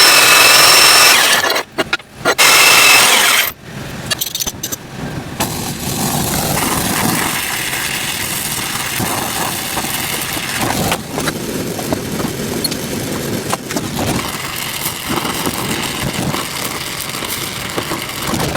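Workbench tool noise while a tattoo machine is taken apart. A small power tool runs for the first second or so, then cuts out twice. After that comes a long stretch of irregular scraping, tapping and handling of small metal parts.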